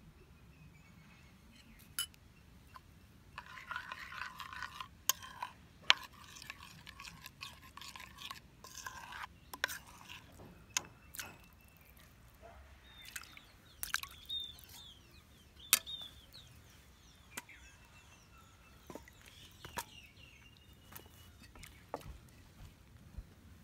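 Food-preparation handling sounds: rubbing noise about three to nine seconds in, with scattered sharp knocks and clicks throughout.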